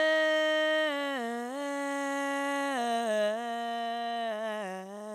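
A single voice singing a long held note a cappella, stepping down in pitch three times: the drawn-out close of a sung intro jingle.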